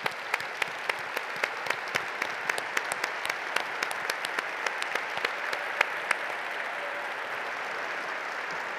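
Large audience applauding steadily, with sharp, close hand claps from a nearby pair of hands, about three or four a second, standing out over the crowd until about six seconds in.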